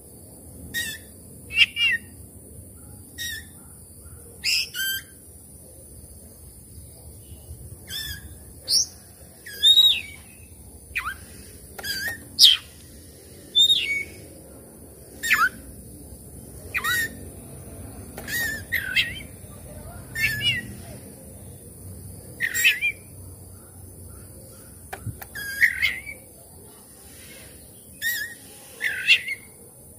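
Oriental magpie-robin (kacer) singing: short, separate whistled phrases of quick rising and falling notes, one every second or two. A steady high hiss lies beneath.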